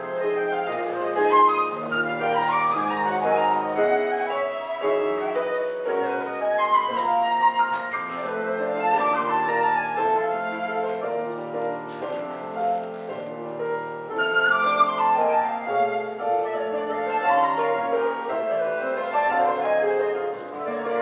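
Concert flute playing a flowing melody with quick rising and falling runs, over a piano accompaniment of low held chords.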